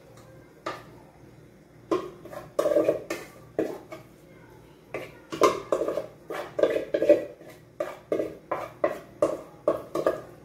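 A spoon scraping and knocking against the inside of a stainless steel pot as pasta is scooped out, giving repeated short metallic clanks that ring briefly. The clanks are sparse at first and come quicker and louder from about five seconds in.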